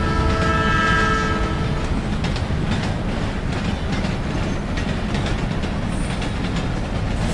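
A train horn sounds at the start and fades out over the first two seconds, over the steady rumble and wheel clatter of a passing train.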